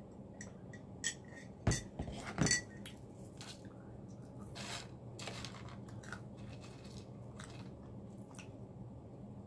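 Close-up eating of chicken wings and curly fries: food handled and chewed, with a few sharp knocks and clicks of dishes, the loudest about two seconds in.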